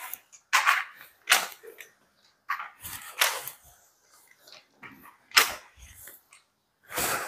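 Flat mop with a plastic frame worked over a ceramic tile floor: about five short scraping swishes and knocks, separated by quiet gaps.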